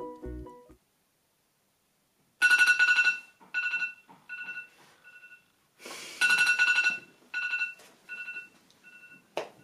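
Timer alarm beeping: a long two-tone beep followed by three shorter beeps that fade, the pattern starting twice, marking that the 24-hour reading time is up. A brief burst of noise comes just before the second round.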